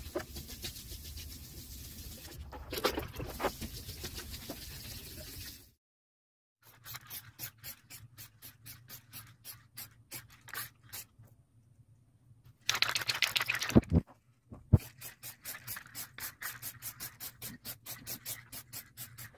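A sponge scrubbing a wet plastic headlight lens. Then an aerosol can of car varnish is shaken, its mixing ball rattling about four times a second, with a long spray hiss about two-thirds of the way through and more rattling after.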